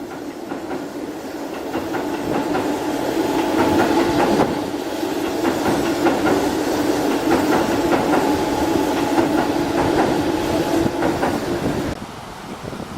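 A train passing, its wheels clicking over the rail joints over a steady hum; it builds over the first few seconds and drops off near the end.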